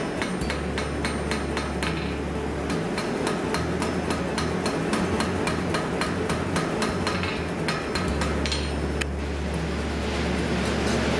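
Hand hammer striking red-hot steel on an anvil in a quick run of ringing blows, about three a second, which stop about nine seconds in. A steady low hum sits underneath.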